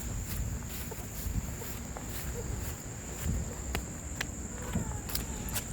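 Footsteps on pavement over a steady high-pitched insect drone, like crickets, and a low background rumble.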